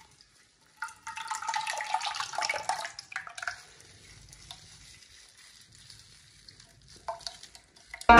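Thick yogurt (dahi) being scooped by hand and dropped into a metal pot: a wet squelching and slapping for a couple of seconds starting about a second in, then a brief squelch near the end.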